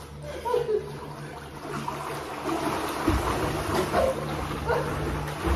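Swimmers kicking and stroking through pool water, a steady splashing that builds from about two seconds in and grows louder about a second later, with faint voices.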